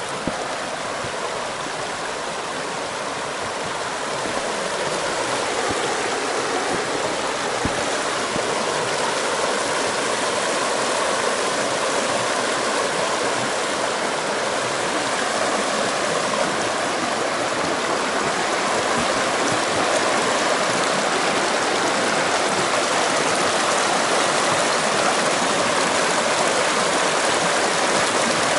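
Shallow rocky stream rushing over stones and small rapids: a steady rush of water that grows a little louder about four seconds in.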